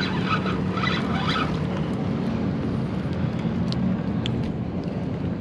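Steady engine drone from passing motor traffic, a low even hum under wind and water noise. A few brief scratchy bursts come in the first second and a half, and faint clicks come near the middle.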